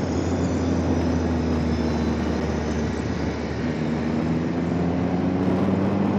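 Motorcycle engine running steadily at part throttle in second gear, with wind rushing over the helmet microphone. The engine note sags slightly about halfway through and climbs back toward the end.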